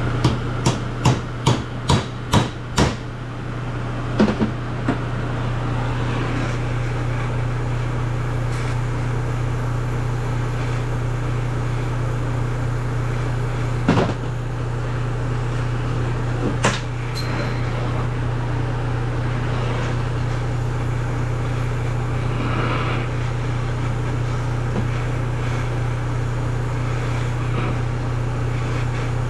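A quick run of about seven hammer blows on metal, followed by a few single knocks, while working at rusted exhaust manifold bolts on a cylinder head. A steady low hum from a shop exhaust fan runs underneath.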